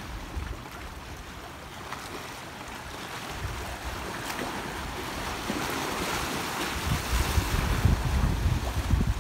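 Small sea waves lapping and splashing against shoreline rocks, a hiss of water that swells about halfway through. Wind buffets the microphone in gusts, heavier near the end.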